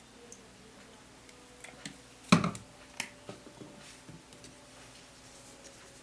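A few sharp clicks and knocks of kitchen utensils and containers being handled, the loudest about two seconds in with a smaller one just after, and lighter ticks around them.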